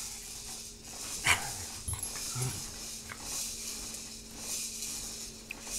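A small dog sniffing and snuffling close to the microphone, with a short rising whine about a second in.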